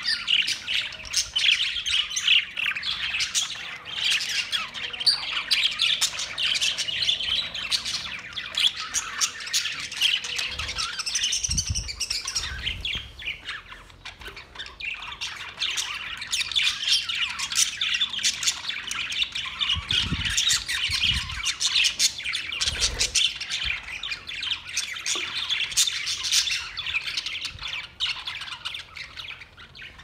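A flock of budgerigars chattering and squawking without pause: a dense mix of warbling chirps and harsh squawks that thins out briefly about halfway through.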